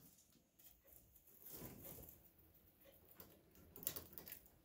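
Degu gnawing on apple branches: faint, scattered crunching and rustling of twigs, with a few sharper clicks about four seconds in.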